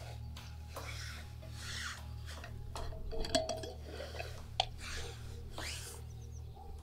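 Soft rustling and handling noises as a small metal flask and cups are passed between two people, with one sharp click a little over four and a half seconds in, over a steady low hum.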